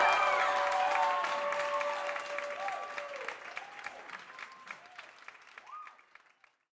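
Audience applauding at the end of a live worship song, while the band's last held note dies away about three seconds in. The clapping thins and fades out just before the end.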